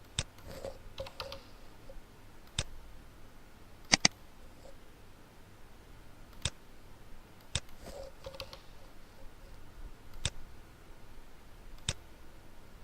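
Computer mouse clicking: single sharp clicks every second or two, with a quick double click about four seconds in.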